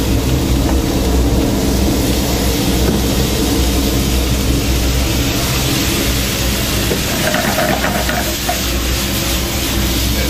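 Commercial kitchen gas burners on a high flame and chicken frying in a pan: a steady hissing roar with a low hum underneath.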